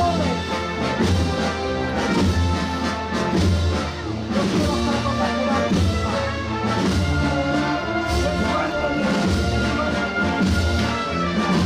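Holy Week procession band playing a processional march: sustained brass chords over a steady low bass line.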